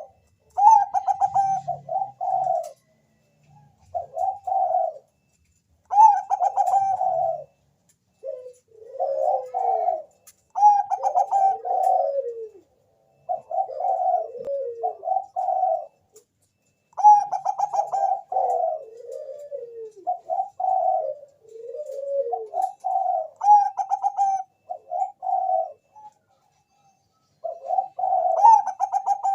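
Bangkok-line zebra dove (perkutut) cooing over and over in rolling phrases of several quick notes, each phrase a second or two long with short pauses between. This is the bird's full song, used as a lure to set other perkutut singing.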